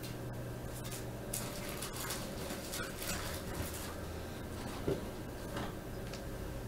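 Low steady hum with faint scattered clicks and rustles, and one brief louder sound about five seconds in.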